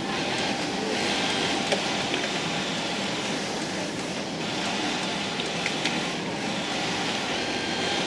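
Industrial single-needle lockstitch sewing machine running as it topstitches fabric: a steady mechanical whirr that grows brighter in stretches of a second or so while the machine stitches.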